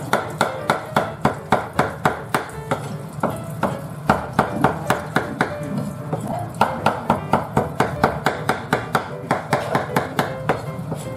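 Kitchen knife chopping raw fish on a wooden cutting board, mincing it fine for namerou: steady knocks about three or four a second, with a short pause around the middle.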